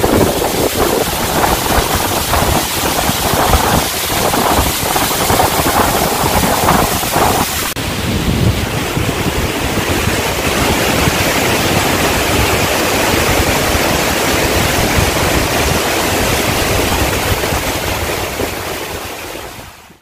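A tall waterfall crashing down rock ledges: a loud, even rush of falling water. About eight seconds in it changes abruptly to a steadier, smoother rush, and it fades out at the end.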